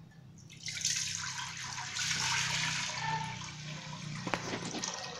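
Coconut milk poured in a steady stream from a bowl into a stainless steel stockpot, starting about a second in.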